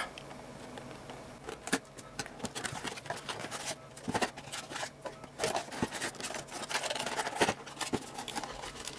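Cardboard box and plastic packaging being handled as a CPU retail box is opened and its stock cooler lifted out: scattered small clicks, scrapes and rustles.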